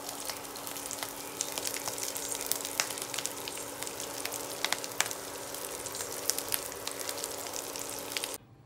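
Breaded patties sizzling in shallow oil in a nonstick frying pan on an induction cooktop, with frequent sharp crackles and pops over a steady hum. The sound cuts off abruptly near the end.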